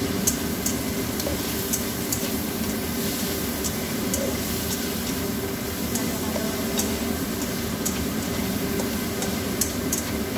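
Diced food sizzling in a nonstick frying pan as a spatula stirs it, with irregular sharp clicks and scrapes of the spatula against the pan.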